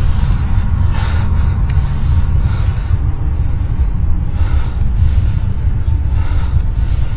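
Loud, continuous deep rumble with faint higher swells every second or two, one of the unexplained low 'strange sounds' that people recorded in the sky.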